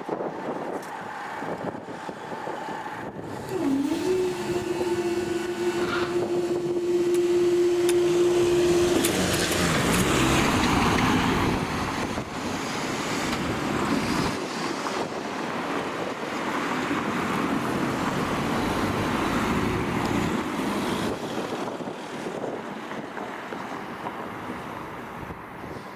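A train passing over the level crossing: a steady engine note holds for several seconds, then drops in pitch about nine seconds in as the train goes by, followed by a broad rumble that fades away.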